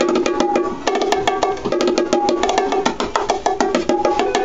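Pair of small children's bongos played with the hands in a fast, steady pattern of many strokes a second, sounding two drum tones, one lower and one higher.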